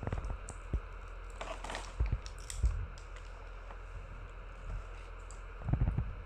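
Handling of snack packets: scattered small clicks, a short crinkling rustle of packaging about a second and a half in, and a few soft knocks.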